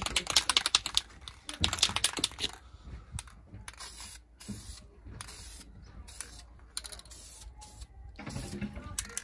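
An aerosol can of high-heat primer is shaken, its mixing ball rattling fast, for the first couple of seconds. Then comes a series of short spray bursts, about two a second, as a light first coat goes onto a brake caliper. A brief rattle of the can follows near the end.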